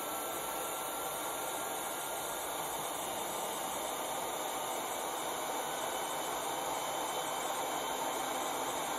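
ATEN ST862D hot air station's handpiece fan blowing a steady rush of air with a faint motor whine, running on in its cooldown cycle with the heater switched off while the nozzle cools.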